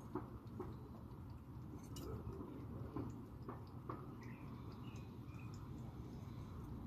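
Soft, irregular clicks of a stray cat chewing its food at a dish, over a low steady background rumble. A few faint high chirps come about four to five seconds in.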